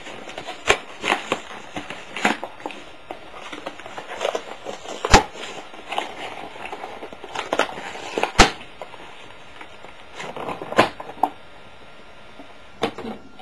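A toy figure's cardboard-and-plastic box being opened by hand: irregular crackling, rustling and clicks, with a few louder clicks about five, eight and eleven seconds in.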